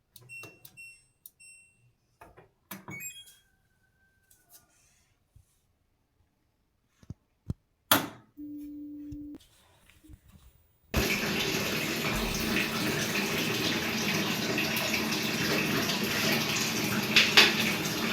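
Water starts running hard about eleven seconds in and keeps gushing steadily, after a few scattered clicks, several short high beeps and a brief low hum.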